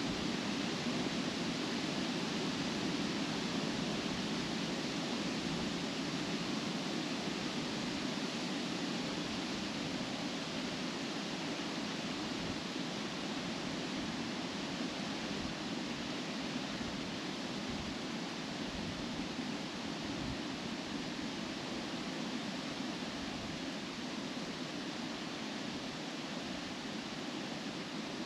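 Wind blowing through trees, the leaves rustling in a steady, even rush that eases slightly over the stretch.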